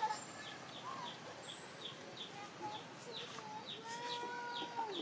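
Chicken chicks peeping: a steady run of short, high, falling peeps, about three a second. Near the end a longer, lower call is held for about a second.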